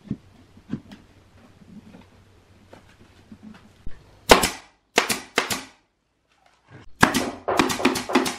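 Pneumatic nail gun firing nails into plywood panel edges: faint knocks of the panels being handled, then three sharp shots in the middle and a quick run of shots near the end.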